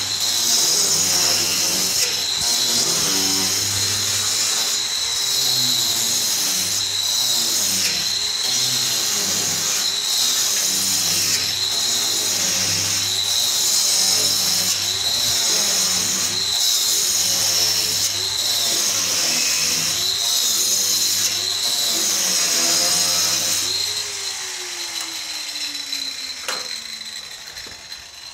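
Angle grinder cutting a chase into a concrete block wall: a steady high whine with a low hum, the load rising and easing about once a second as the disc is worked along the cut. About four seconds before the end it drops off and winds down in pitch.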